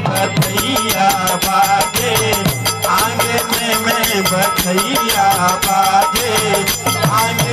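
Live Hindi devotional folk song (badhai geet): a male voice sings a wavering melody over a fast, even beat of shaken rattle-type percussion.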